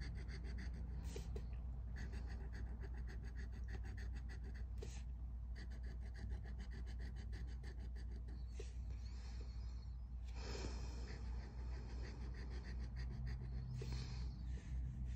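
Rapid, regular scraping strokes of a scratcher tool rubbing the coating off a scratch-off lottery ticket, with a few short pauses, over a low steady hum.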